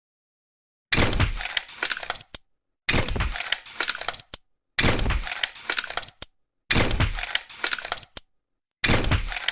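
Tranquilizer pistol shot sound effect, repeated five times about every two seconds. Each shot starts sharp with a low thump, is followed by about a second of mechanical clicking and rattling, and ends in one short click.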